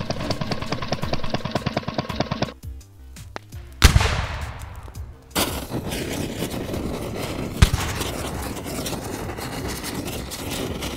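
Added sound effects: a fast, even rattling that stops about two and a half seconds in, then a sudden loud bang with a long fading rush. After that comes a steady rush of flames, with one sharp thump partway through.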